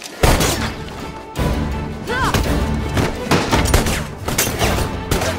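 Film soundtrack excerpt: music mixed with gunfire and booming impacts, as in a battle scene.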